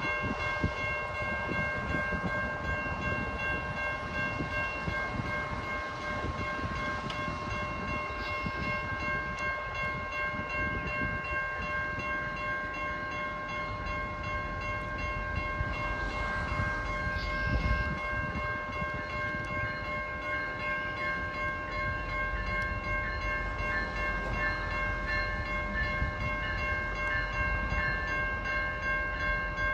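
GO Transit diesel commuter train approaching from a distance, its low rumble growing louder over the last several seconds. A set of steady high tones holds throughout.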